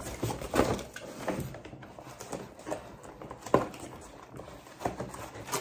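Cardboard packaging and metal detector parts being handled in an open box: irregular rustling with a few light knocks.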